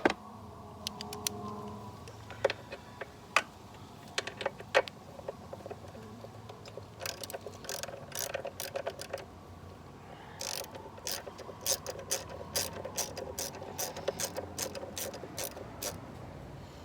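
Ratchet wrench with a half-inch socket clicking in repeated runs as the nut on the starter's positive cable terminal is worked loose.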